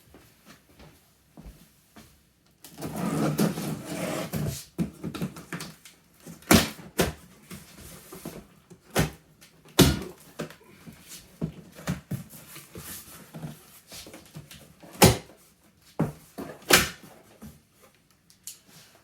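Wood chipper's cardboard box and packaging being handled during unboxing: a couple of seconds of rustling and scraping, then a series of sharp knocks and bumps spaced a few seconds apart.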